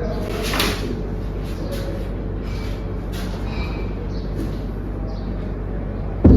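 Soft rustling and light knocks from a patient being handled on a treatment table during a chiropractic adjustment, over a steady low hum. A sudden loud thump comes right at the end.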